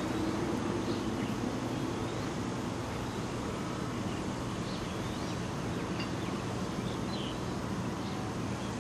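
Diesel-electric locomotive hauling a container freight train away, its engine running as a steady drone that fades a little, with birds chirping now and then.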